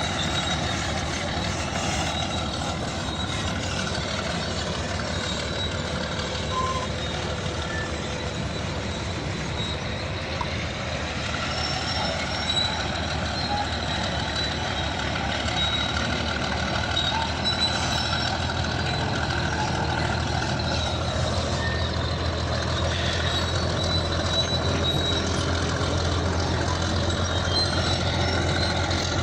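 Bulldozer's diesel engine running steadily as the machine works. Its low drone grows stronger and a little louder in the second half.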